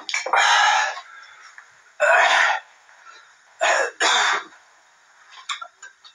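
A person coughing and clearing their throat in four harsh bursts, the first the longest and the last two close together, as from the burn of hot green chillies.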